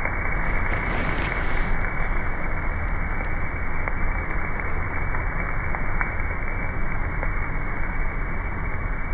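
Two steaks sizzling on a hot grill: a steady hiss with a few small crackles.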